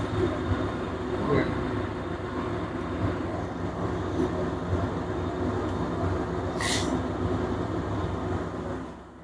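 Steady low machine hum running throughout, with a brief soft hiss about seven seconds in.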